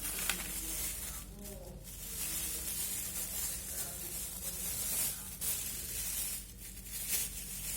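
Plastic packaging rustling and crinkling in an uneven stream as the items are handled.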